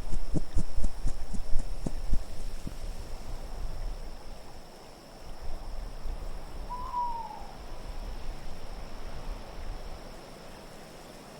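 Winter wind ambience, with low heavy gusts and knocks in the first two seconds that ease off after about four seconds. A single short call falling in pitch comes about seven seconds in, over a faint steady high whine.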